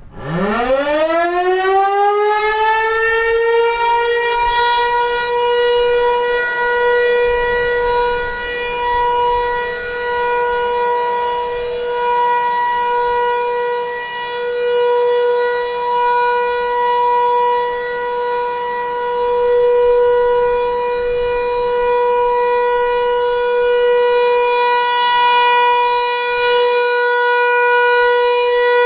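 Federal Signal 508-128 rotating electromechanical outdoor warning siren winding up from a low pitch to its full steady alert tone over the first couple of seconds, then holding one pitch while its loudness swells and fades every few seconds as the horn turns.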